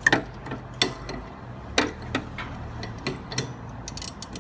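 Metal clicks and knocks of a half-inch drive ratchet and socket extension being fitted into the square drive hole of a mower deck's belt tensioner arm. There are a handful of sharp separate knocks, then a quick run of clicks near the end.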